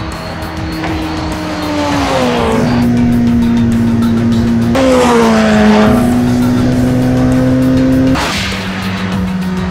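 Onboard sound of a Porsche 919 Hybrid's 2-litre single-turbo V4 racing engine at speed. Its pitch falls twice as the car slows through the gears, holds steady in between, and drops suddenly near the end.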